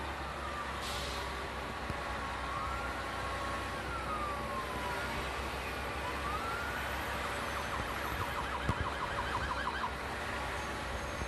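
Police siren sounding from down the road in slow rising and falling wails, switching to a rapid yelp about seven seconds in. Underneath runs the steady low drone of the Scania truck's engine, with a short hiss about a second in.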